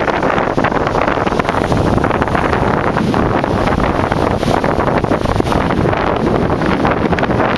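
Strong gusty wind blasting across the microphone, a loud, continuous rumbling noise.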